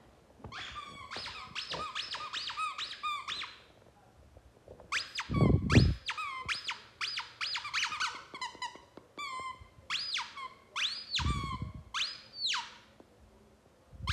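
Repeated high-pitched squeaks, each gliding up and back down in pitch. They come in a quick run at first, then singly about once a second. Two low thumps fall about halfway through and near the end.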